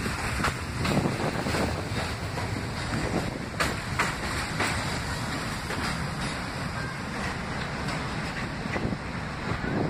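R68 subway train rolling past and pulling away along the elevated track, a steady rumble with occasional sharp clacks. Wind buffets the microphone throughout.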